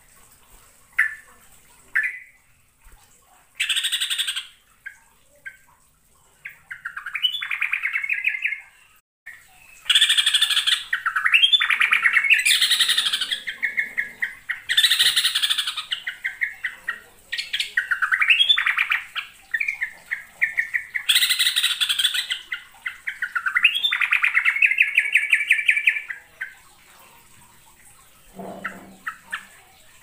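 Yellow-vented bulbul singing. A few short chirps come first. From about four seconds in, long loud phrases of rapid repeated notes follow, broken by harsher rasping notes, and the song stops a few seconds before the end.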